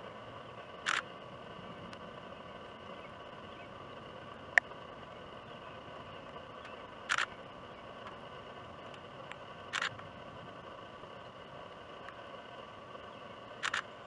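Short sharp clicks over a faint steady outdoor background: four brief double clicks spaced several seconds apart, and one single very sharp tick about four and a half seconds in, the loudest sound.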